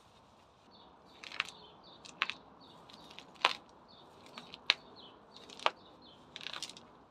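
Weeds being pulled up by gloved hands: a run of sharp snaps and crackles of stems and roots tearing, roughly one a second, some in quick little clusters.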